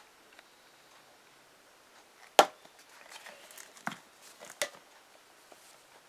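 Handling noises: one sharp knock about two and a half seconds in, then rustling and two lighter knocks, with no keyboard notes played.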